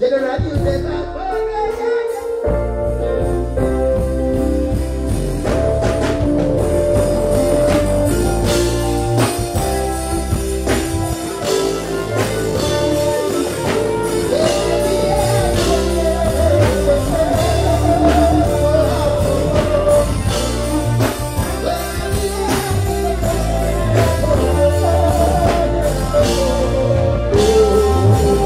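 Live band music with a singer: electric guitar, keyboards and drum kit, with the bass and drums coming in about two seconds in.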